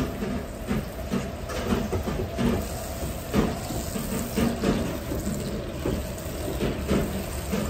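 A block of butter sizzling and spitting as it melts and slides around a hot wok, over the steady roar of the wok burner.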